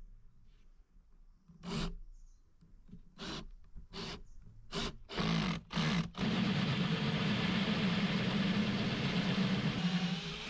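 Seven short rubbing strokes of a hand tool across a wooden board, then about six seconds in an electric power tool starts and runs steadily with a constant hum.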